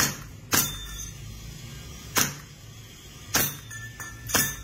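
Armorer Works VX9310 Glock 19 gas blowback airsoft pistol firing five shots at uneven intervals, each a sharp crack of the slide cycling.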